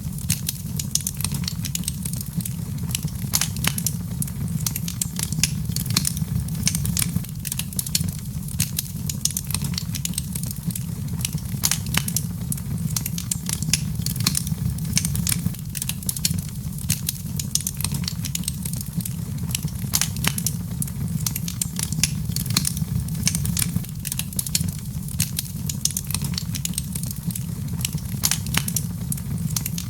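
Wood fire burning in a fireplace: a steady low rumble of the flames with dense, irregular crackles and pops throughout.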